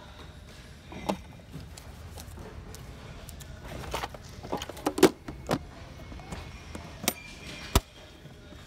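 Tackle box being closed: its trays knocking and clicking as they fold in and the lid shuts, a string of sharp knocks with the sharpest near the end.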